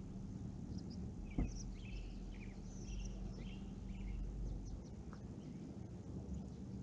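Small birds chirping, a string of short high calls mostly in the first half, over a low steady hum. A single sharp click about a second and a half in is the loudest sound.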